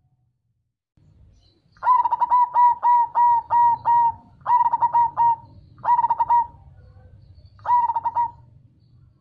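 Zebra dove (perkutut) singing its cooing song: a quick run of short, clear coo notes about two seconds in, then three shorter phrases of rapid notes with brief gaps between them.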